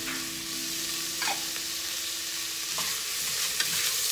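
Sliced onions and green chillies sizzling in hot ghee and oil in a steel pressure cooker while they are stirred with a ladle, which knocks lightly against the pot a few times.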